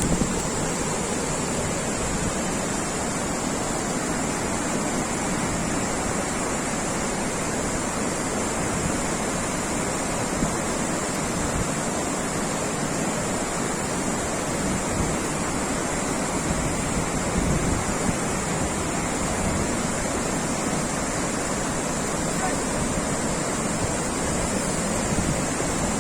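Waterfall rushing: a steady, even roar of falling water, with some wind buffeting on the microphone.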